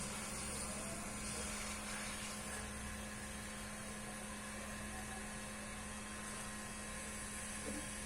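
Hot-air rework station (soldering blower) running steadily: an even fan hiss with a constant low hum, heating the solder to free a phone's factory charging connector.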